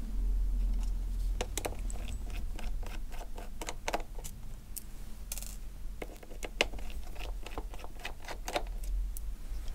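Precision screwdriver turning out the small screws of an ASUS UX303LA laptop's metal display hinge: a run of irregular small metallic clicks and ticks.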